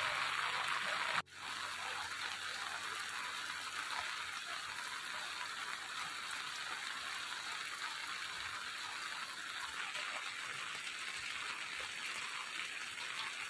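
Rainwater running down a rocky gully, cut off suddenly about a second in, then steady rain falling.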